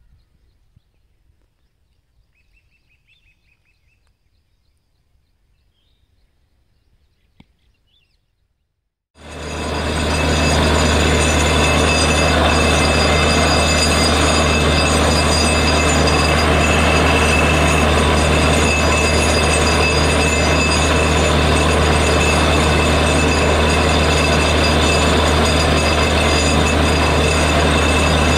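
Faint open-air quiet with a few small chirps. About nine seconds in it cuts to a borewell drilling rig running loud and steady, with a deep hum. Its engine and air compressor are blowing water and foam up out of a bore that has struck water.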